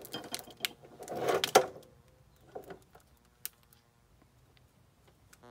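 Wire harness and small plastic connectors being handled: rustling and light clicks of wires and plastic, loudest about a second and a half in, then a few faint clicks with one sharp tick near the middle.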